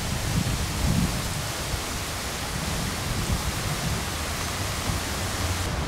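Park water fountain splashing: a steady rushing hiss of falling water, with an uneven low rumble underneath. The highest part of the hiss drops away suddenly near the end.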